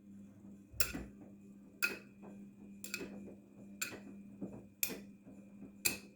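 Daewoo DWD-FT1013 washing machine turning its drum during a cotton wash: the motor hums steadily, and a sharp knock comes about once a second with fainter ticks in between.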